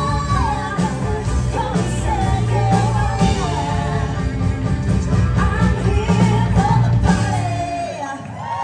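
Live country band with several women singing over drums, bass, electric guitar and keyboard. The band stops about seven seconds in, and a high vocal cry rises near the end.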